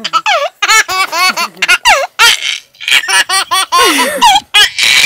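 A baby laughing hard in rapid, repeated bursts of high-pitched belly laughs, with short catches of breath between them.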